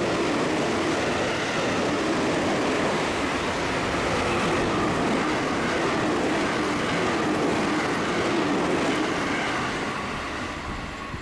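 JR Central New Rapid (Shin-kaisoku) electric trains passing through the station at speed on the up and down main lines, a loud steady rush of wheel and air noise. It fades about ten seconds in.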